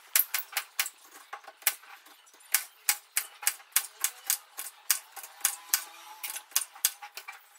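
Kitchen knife dicing a cucumber into small chunks, the blade striking the cutting surface in a quick, uneven run of sharp chops, about three or four a second.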